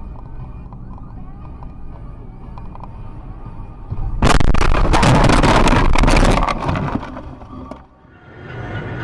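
Car engine and tyre noise heard inside a moving car on a wet road, with faint steady tones over it. About four seconds in, a much louder rushing, crackling noise lasts nearly three seconds and then fades.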